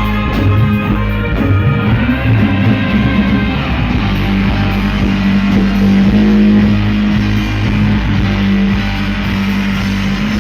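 Rock-style music with guitar and drums, played loudly through a big sound system during a sound check, carried by a heavy, long-held bass note.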